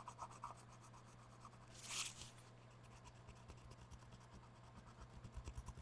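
Near silence with a faint steady hum, broken by one brief soft scratching stroke about two seconds in and a few faint light ticks near the end.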